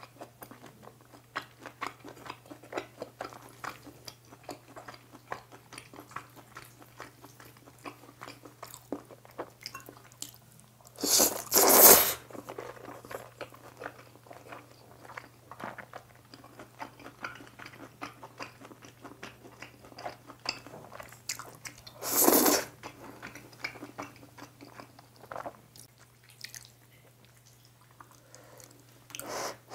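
Close-miked eating of jjapaghetti noodles and chunks of beef sirloin: steady wet chewing and mouth clicks, broken by two loud slurps of noodles, about eleven seconds in and again about twenty-two seconds in.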